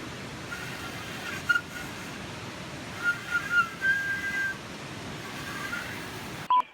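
A person whistling a few short notes over a steady rushing noise. The sound cuts off abruptly just before the end.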